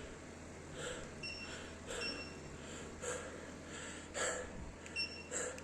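A person breathing hard, with short audible breaths at about one a second.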